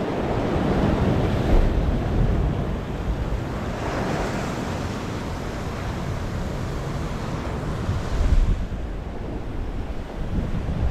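Ocean surf surging and washing through a narrow rock channel, rising and falling as the swells come through, with wind buffeting the microphone.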